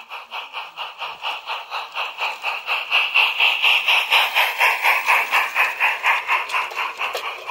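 Gauge 0 model locomotive 'Trematon Hall' and its train running past close by, with a rapid, even beat of about five pulses a second that is loudest as the engine goes by, about halfway through.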